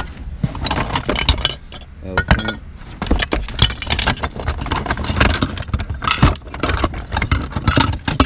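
Small trinkets in a cardboard box—keychains, little glass and plastic cases, metal odds and ends—clinking and rattling against each other as a hand rummages through them.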